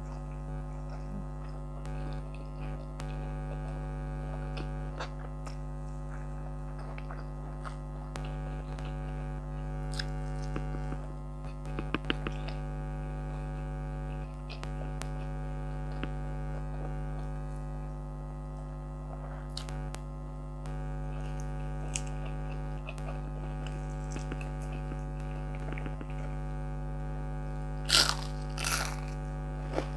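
Air conditioner running with a steady hum, under close-up chewing of rice and fried fish eaten by hand. Near the end come a few sharp, louder crunches as a whole fried round scad (galunggong) is bitten.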